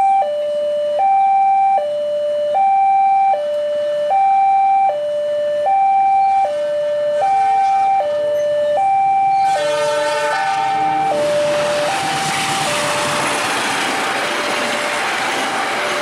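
Level-crossing warning alarm sounding a steady two-tone high-low signal, switching about every three-quarters of a second. About ten seconds in, a diesel locomotive's horn sounds briefly. Then the noise of the passing train's wheels on the rails takes over, with the alarm still sounding faintly beneath it.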